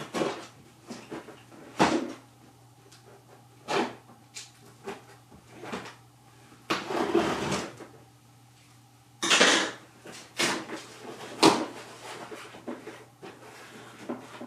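A toy box and its packaging being handled and opened: irregular knocks, clicks and scrapes, with two longer rustling or tearing noises about seven and nine and a half seconds in.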